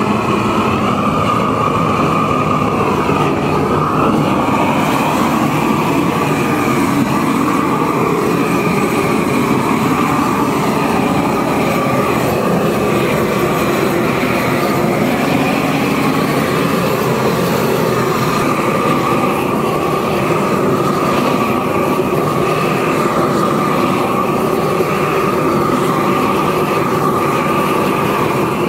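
Long-handled gas torch burning with a loud, steady roar as its flame heats a bronze cymbal for annealing; the flame cuts off at the very end.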